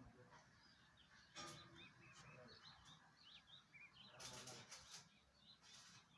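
Small birds chirping faintly and repeatedly, with two short, louder noises about a second and a half in and about four seconds in.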